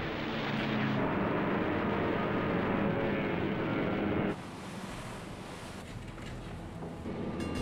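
Loud, steady rushing noise with a faint music bed beneath it. The noise drops sharply about four seconds in, leaving a quieter rush.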